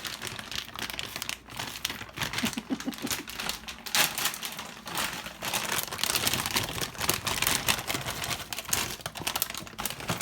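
Plastic bag of Tyson chicken nuggets crinkling and rustling as it is handled, with a dense run of small clicks, louder in the second half.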